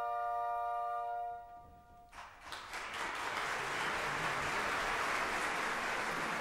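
The final held chord of the operatic music fades out about a second and a half in. A little after two seconds the opera audience bursts into applause, which quickly grows into steady, dense clapping.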